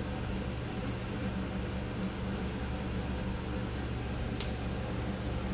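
Steady low mechanical hum, with a single sharp click about four seconds in.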